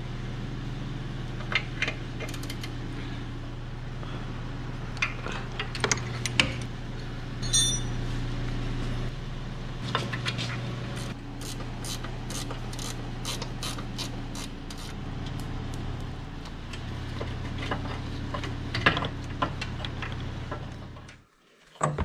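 Ratchet wrench clicking in short runs while the two 10 mm bolts holding the brake vacuum pump are undone, over a steady low hum that starts and stops abruptly.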